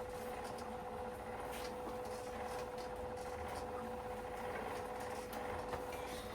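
Rotimatic Next roti-making machine running with a steady hum, a constant mid-pitched tone over a low whir, with faint ticks, while it mixes and kneads the dough.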